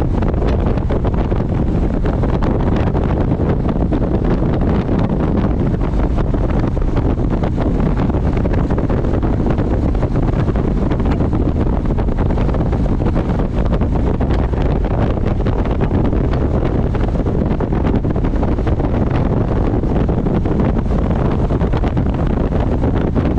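Steady wind rush on the microphone from riding a touring motorcycle at highway speed, with the engine's drone underneath.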